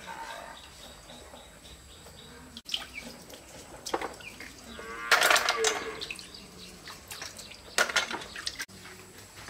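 A cow moos once, about five seconds in, for about a second. A few light knocks from handling come before and after it.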